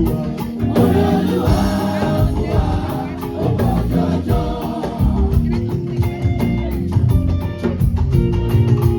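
Choir singing over a live band with a steady drum beat.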